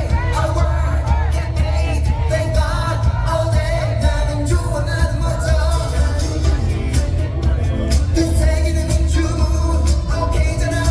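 A pop song with a voice singing over a loud backing track with a heavy bass.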